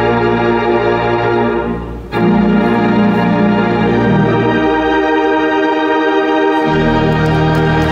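Wurlitzer theatre pipe organ playing loud, sustained full chords. The sound breaks off briefly about two seconds in and then comes back. The deep pedal bass drops out for a stretch and returns near the end.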